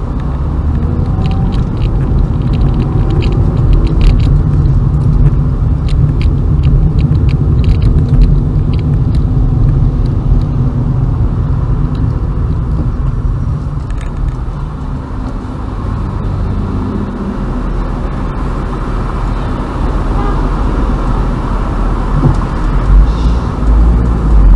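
Steady low road rumble and tyre noise inside a car at highway speed, picked up by a dashcam, with a few faint clicks in the first half.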